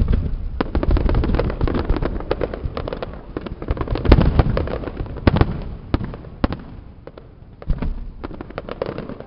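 Fireworks display: a dense run of rapid pops and bangs from bursting shells, with the loudest bangs about four and five seconds in, thinning out toward the end.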